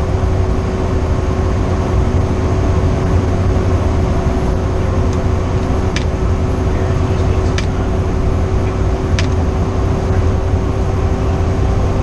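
Fire engine driving, heard from inside the cab: a steady engine drone and road rumble. Three short clicks come about a second and a half apart in the middle.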